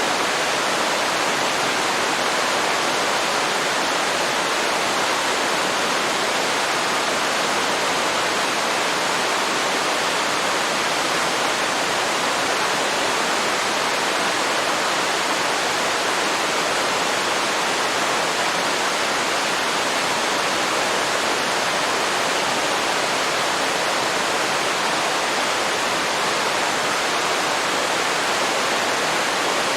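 Waterfall pouring into a river: a steady, even rush of falling water.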